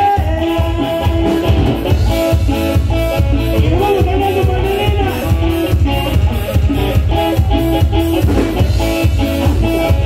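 A norteño band playing live: a melody line over a steady, pulsing bass and drum beat.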